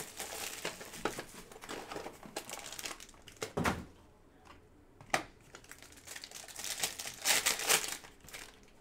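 Foil wrapper of a 2024 Bowman Chrome trading-card pack being torn open and crinkled by hand, in irregular crackling bursts that are loudest about halfway through and again near the end.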